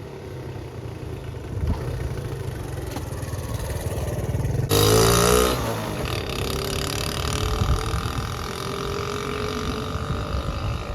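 Honda C70's small single-cylinder four-stroke engine running on the move, with wind noise over the microphone. About five seconds in there is a loud, brief whoosh with sliding pitches, and in the second half the engine note rises slowly as it speeds up.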